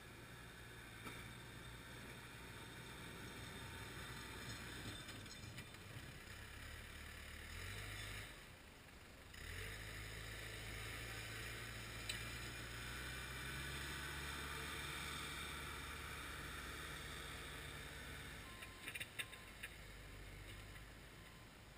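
Loader's diesel engine working while plowing snow. Its pitch drops and the sound briefly falls away about eight seconds in, then picks up again. A few sharp clicks come near the end.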